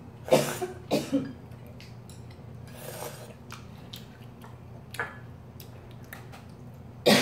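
A woman coughing in short bursts, a few times with the loudest near the end, clearing chili flakes caught in her throat.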